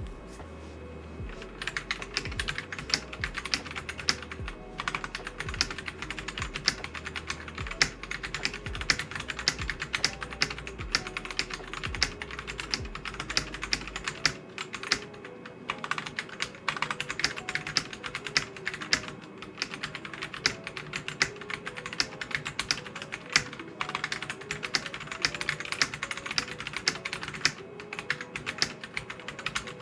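Typing on a stock, unmodded CiY X77 tenkeyless mechanical keyboard with linear switches: a fast, continuous clatter of keystrokes, pretty loud, starting about a second and a half in.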